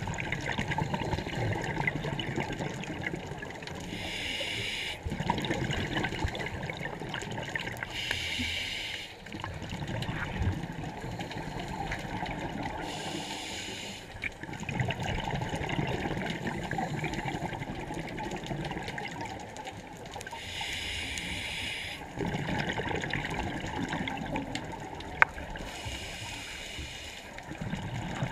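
Scuba diver breathing through a regulator underwater: a short hiss on each inhale followed by bubbling from the exhale, repeating about every four to five seconds, with one longer gap around the middle.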